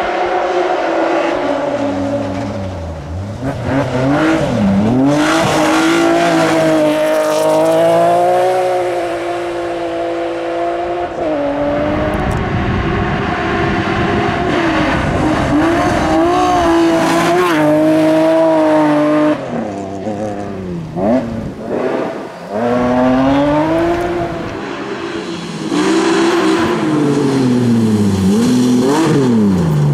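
BMW M3 E36 rally cars' straight-six engines revving hard on gravel stages, the pitch climbing and dropping again and again through gear changes and lifts. In places a rushing spray of gravel and tyre noise rises over the engine.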